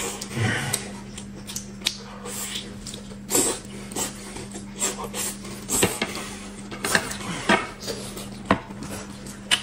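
Eating sounds of whole boiled chicken being torn and chewed, with irregular clicks of chopsticks on plates, over a low steady hum.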